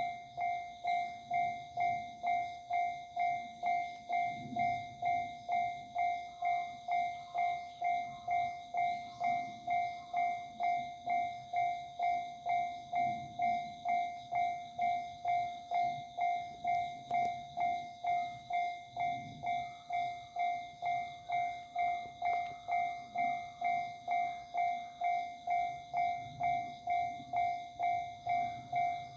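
Japanese railway level-crossing warning bell ringing at an even pace, about one and a half to two strikes a second, each ringing tone fading before the next. It sounds while a train is approaching or passing the crossing.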